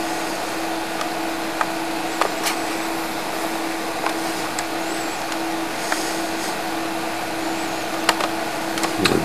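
Steady background hum and hiss with a few faint clicks and short, faint high whistles.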